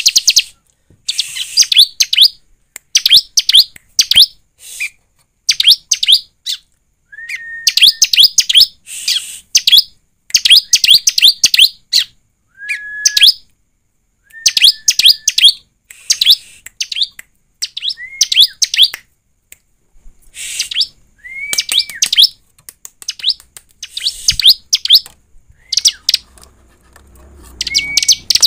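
Bar-winged prinia (ciblek) singing: repeated short phrases of rapid high chirps with brief pauses between them, some phrases led by a lower short whistled note.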